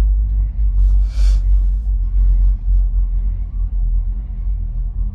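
Steady low rumble in a moving aerial tramway car coming in towards its base terminal, with a short hiss about a second in.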